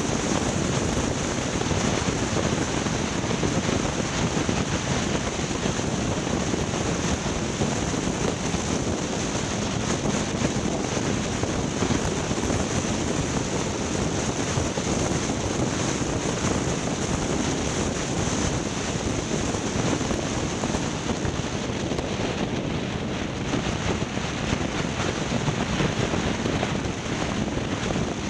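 Wind buffeting the microphone: a steady rushing noise with no clear engine note.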